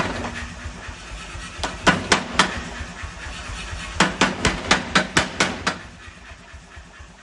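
40 kg pneumatic forging air hammer striking in short runs of blows, about four a second, over the steady hum of its motor and compressor: a single blow, a run of four, then a run of about eight. Near the end the blows stop and only the motor keeps running.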